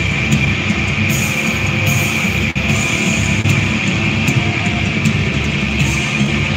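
Heavy metal band playing live: distorted electric guitars over a drum kit in a loud, dense wall of sound, recorded from within the crowd.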